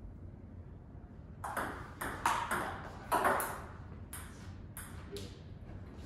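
Table tennis ball clicking off paddles and the table in a rally: a quick run of sharp clicks starts about a second and a half in, followed by a few more spaced-out clicks.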